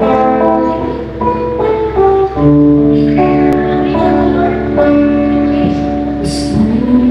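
Instrumental intro of a worship-song backing track: held chords that change every second or so. A girl's singing voice comes in near the end.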